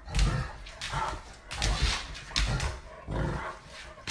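A dog making a run of short, rough vocal sounds, about six in four seconds.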